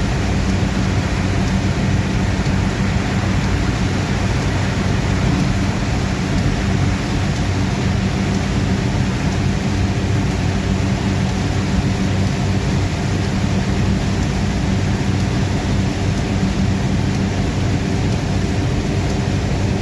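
Heavy rain on a moving car, heard from inside the cabin: a steady, loud rush of rain and wet road noise over a constant low hum from the car.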